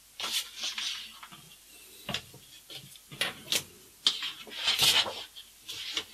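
Sheets of paper being handled and slid over a cutting mat, rustling in short spells, with a few sharp knocks as a steel rule and utility knife are moved and set down.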